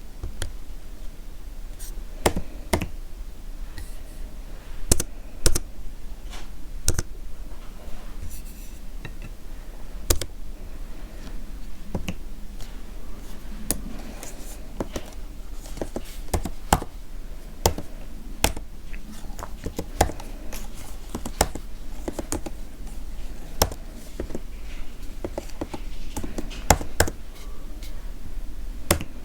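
Computer keyboard keys being pressed slowly and irregularly, single sharp clicks about once or twice a second rather than continuous typing.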